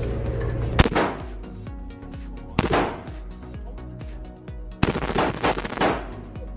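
HK53 carbine (5.56 mm, roller-delayed) fired in single shots, about four shots one to two seconds apart, each with a short echo off the indoor range. Background music plays underneath.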